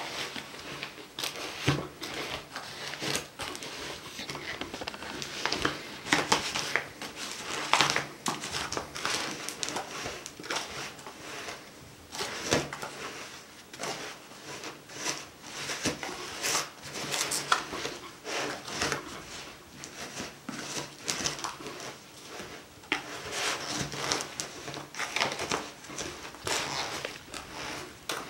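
Hands kneading and squeezing damp bird sand mixed with corn starch, water and oil in a thin plastic tub: irregular gritty crunching and scraping, with the tub crinkling under the hands.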